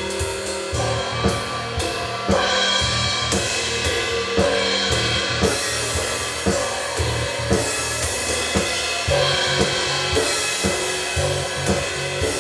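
Improvised music: drum kit hits with cymbals and hi-hat, irregularly spaced, over steady held electronic drone tones.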